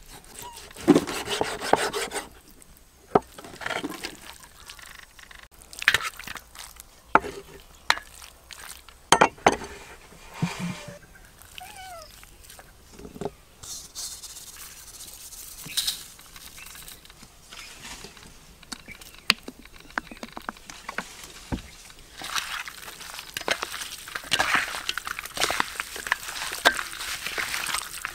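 Irregular knocks, scrapes and rubbing sounds of handling, with a denser, hissier stretch near the end and a short cat meow about twelve seconds in.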